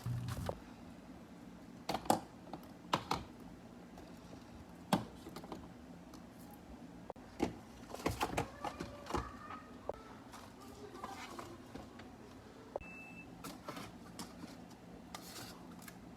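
Plastic containers and food items knocking and clattering now and then as they are handled and set on refrigerator shelves, with a single short high beep about 13 seconds in.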